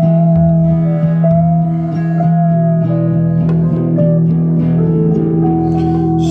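Band music with no singing: a guitar plays a melody of held notes, sliding between some of them, over a steady bass note.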